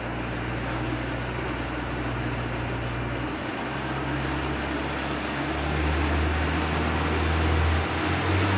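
Engine running steadily under a constant noise, its low hum shifting pitch a few times, about a third of the way in, past halfway and near the end, getting slightly louder.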